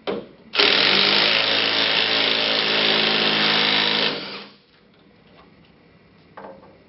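Cordless impact gun with an Allen key adapter hammering a shear bolt on an aluminium shear bolt connector until the bolt head shears off. It runs loudly for about three and a half seconds, then stops.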